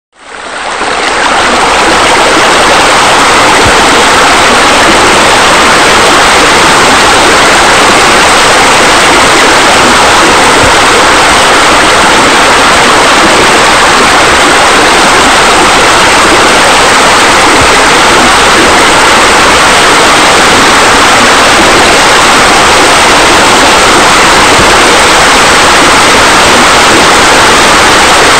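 A steady rush of falling water, as from a pool's spillway water features pouring into the pool. It fades in over the first second or two, then holds loud and even.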